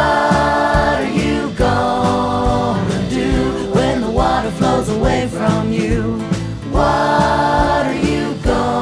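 Music: a song with layered, choir-like vocal harmonies on held notes over a steady beat.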